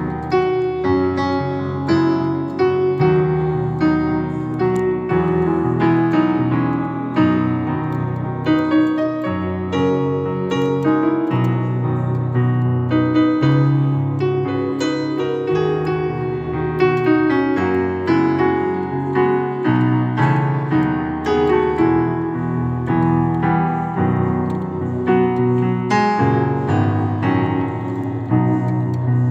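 Yamaha PSR-S975 arranger keyboard played with a piano voice: both hands playing held chords over bass notes, with a melody on top, changing about once a second.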